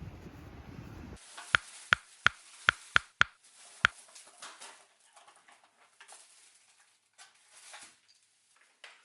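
Seven sharp clicks or taps at an uneven pace over about two and a half seconds, then faint rustling.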